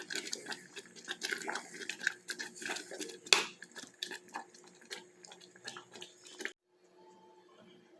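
Kitchen utensils clicking and scraping against a bowl or dish during food preparation, with one sharp knock a little past three seconds in. The sounds stop abruptly near the end.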